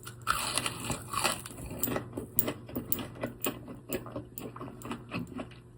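A person biting into and chewing a fried chicken tender, close to the microphone: a run of short, uneven crunching clicks, several a second.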